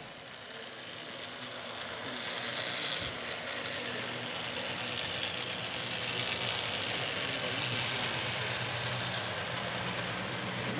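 HO scale model diesel locomotives running on a DCC layout, their sound decoders playing a steady diesel engine hum that grows a little louder over the first several seconds.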